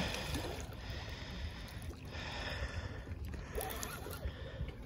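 Lake water lapping and splashing against shoreline rocks, with wind on the microphone; a hooked fish splashes in a landing net right at the start.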